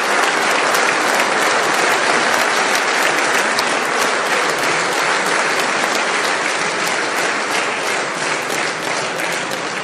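A large seated audience applauding steadily, the clapping easing off slightly near the end.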